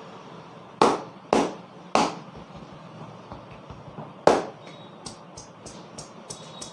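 A barber's hands striking the head during a head massage: four loud, sharp slaps in the first half, then a quicker run of lighter pats, about four a second.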